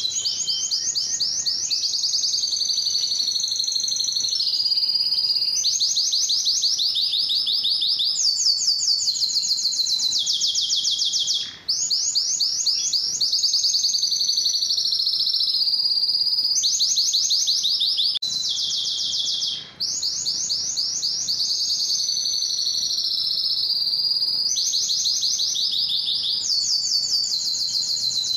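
Male domestic canary singing a long continuous song of fast trills, each phrase a rapid run of one repeated note lasting a second or two before switching to a new one. The song breaks off briefly twice, near the middle and about two-thirds of the way through.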